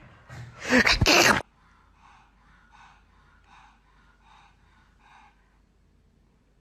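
A loud gasping breath in the first second and a half, followed by about five faint, rhythmic puffs of breathing, roughly one every three-quarters of a second.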